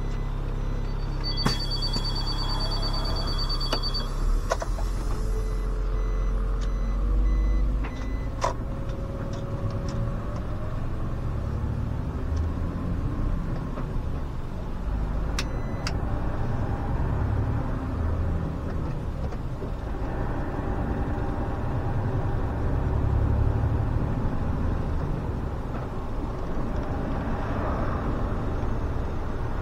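SOR CN10.5 bus's diesel engine heard from on board. A rapid, pulsing electronic beeping lasts about three seconds near the start. The engine then rises in pitch as the bus pulls away, drops back about eight seconds in as it shifts, and keeps running under way with further rises in pitch.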